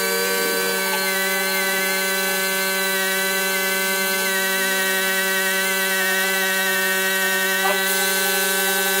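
Pneumatic palm sander with a round pad running steadily with a high whine, sanding the old graphics off a fibreglass boat hull down to the gel coat.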